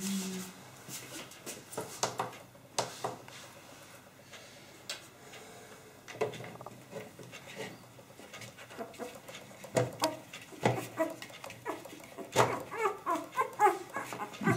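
Newborn Drentsche Patrijshond puppy squeaking and whimpering as it is held in a plastic weighing bowl, a rapid run of short high cries in the last couple of seconds. Before that, scattered knocks and rustles of handling the puppy and bowl.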